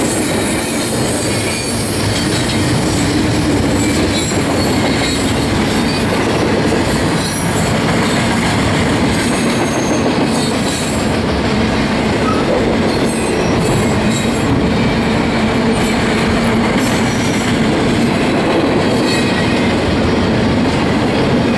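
Double-stack intermodal well cars rolling past at speed: a steady, loud rumble of steel wheels on rail, with faint high-pitched wheel squeal coming and going.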